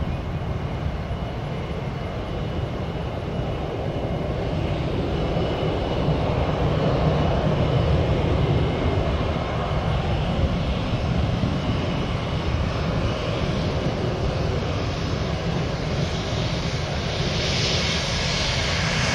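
Jet airliner engines running: a continuous deep rumble with a thin steady whine, the high hiss swelling louder over the last few seconds.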